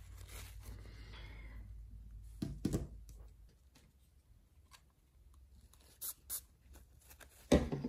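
Paper towel rubbing and crinkling over a folding knife's metal liner. About two and a half seconds in, a couple of sharp knocks as the knife is set down on the table, then two light clicks and one louder knock near the end as a small bottle is handled.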